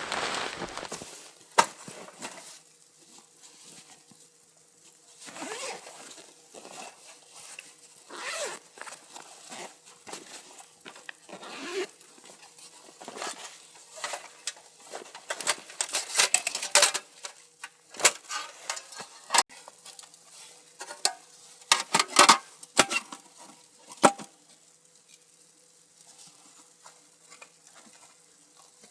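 Camping gear being handled by hand: irregular rustling, clicks and knocks, with the sharpest knocks past the middle, thinning out near the end.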